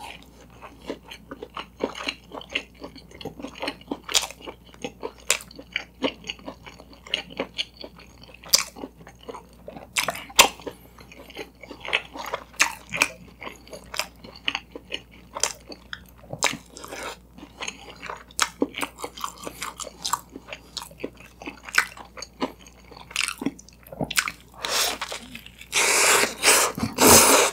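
Close-miked chewing of a toasted bread sandwich with egg and sausage: many small wet clicks and crackles of the mouth at work. Near the end, a louder, denser crunch as a bite is taken into the toasted bread slice.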